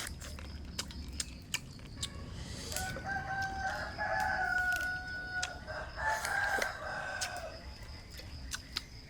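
A rooster crowing: two long calls, one about three seconds in and another about six seconds in, with scattered short clicks.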